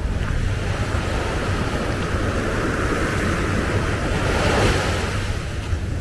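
Ocean wave breaking and washing up the beach, swelling to a peak about four and a half seconds in and then fading, over a steady rumble of wind on the microphone.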